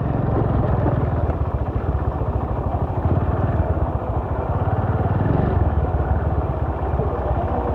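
Motorcycle engine running steadily as the bike is ridden, a fast, even firing pulse throughout.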